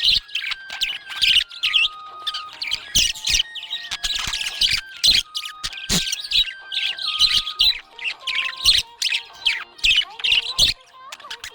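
Budgerigars chirping and chattering in a rapid, continuous stream of short high chirps. A melody of held notes that step from pitch to pitch runs underneath.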